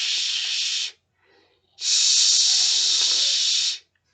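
A woman's voice hissing a long 'shhh', the sound of the letter X in Portuguese, twice: the first trails off about a second in, the second, louder, runs from just under two seconds to near the end.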